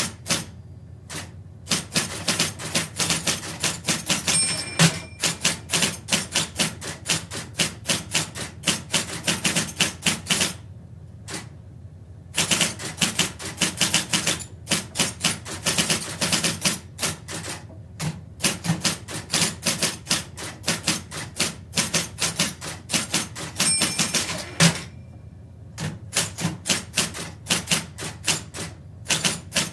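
Electric typewriter typed at a medium pace, heard from about four metres away: runs of rapid keystrokes broken by pauses of about a second. A short ringing tone sounds twice among the keystrokes, about five and about twenty-five seconds in.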